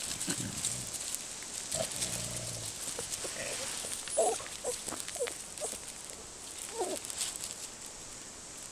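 Australian Kelpie making low, drawn-out grunting sounds, then a string of short, higher squeaks about four to seven seconds in.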